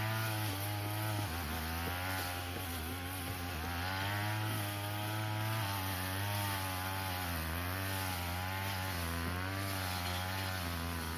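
Two-stroke brush cutter (grass trimmer) engine running, its pitch rising and falling repeatedly as the throttle is worked.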